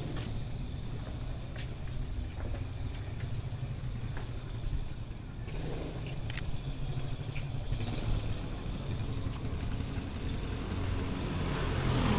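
Steady low rumble of street traffic, with a few light clicks and one sharper click about six seconds in, and a motor vehicle growing louder near the end.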